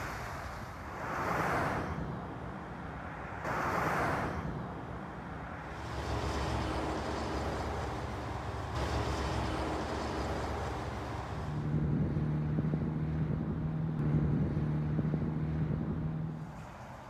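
Road traffic passing close by: two short swells of passing cars in the first few seconds, then a steady engine hum that grows louder in the second half and drops off shortly before the end.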